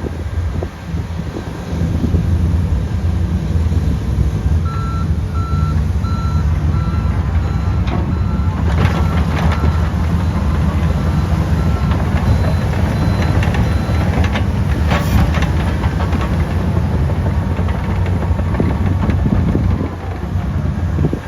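Komatsu D155 bulldozer's turbocharged six-cylinder diesel running steadily under load, with its backup alarm beeping in a regular series for about nine seconds in the middle as the dozer reverses. A few clanks sound in the middle.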